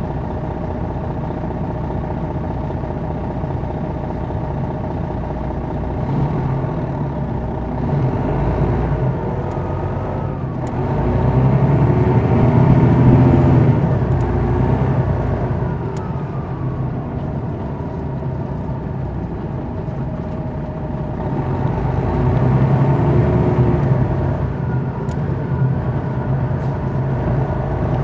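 Detroit Diesel Series 60 diesel engine of a 2001 MCI D4000 coach running with a steady drone. It pulls harder and louder twice, about ten seconds in and again past twenty seconds, its pitch rising and then easing back down.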